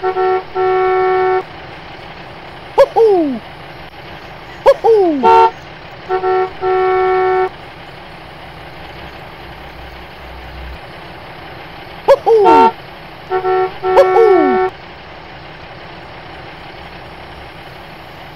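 Vehicle horn toots, a short toot and then a long one, heard four times, each group led by one or two quick falling whistle-like swoops, over a steady low hiss.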